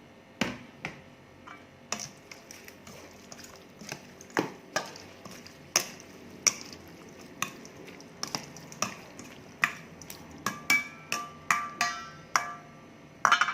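Utensils knocking and clinking irregularly against a mixing bowl as a glass-noodle salad is tossed, with a few ringing clinks near the end.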